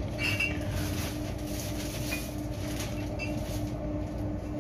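Steady low machinery hum with a faint, evenly pulsing tone in it and a few brief faint clicks.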